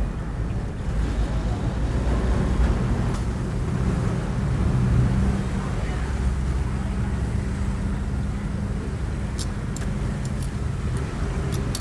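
Street traffic with motorbike engines running, a steady low hum, and a few sharp clicks near the end.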